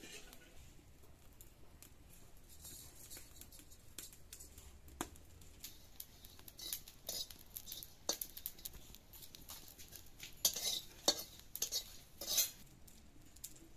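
A long metal spatula stirring spice seeds in hot oil in an iron kadai, scraping and knocking against the pan. Scattered light scrapes build to a few louder, sharper strokes near the end.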